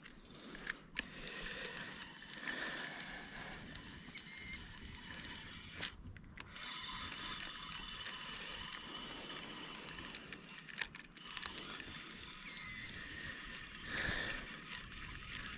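Faint outdoor ambience with scattered small clicks and two brief high chirps, about four seconds in and again some eight seconds later.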